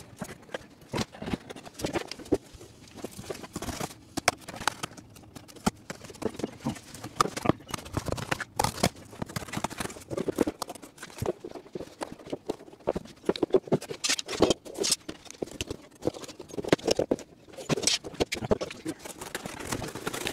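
Stiff cardboard being handled and cut by hand, with a dense, irregular run of crackling, scraping and snipping clicks.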